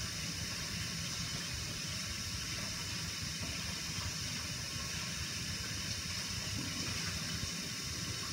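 Kitchen tap running steadily into a bowl at the sink, cold water pouring over a hard-boiled egg to cool it.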